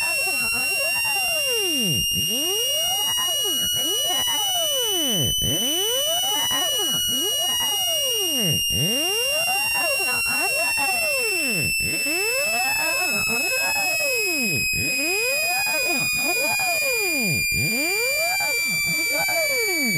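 Synthetic speaker-cleaning test tone. A loud, steady high-pitched whine drifts slightly up and then back down, with sweeping tones that arc up and down about every three seconds.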